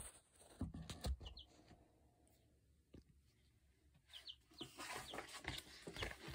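Young chicks in a brooder peeping faintly, in short high cheeps: a couple about a second in, then more often from about four seconds in. A few soft knocks come in the first second.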